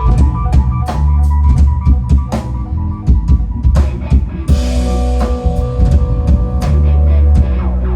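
Live instrumental groove played by a band: a drum kit keeping a steady beat, with electric bass and guitar.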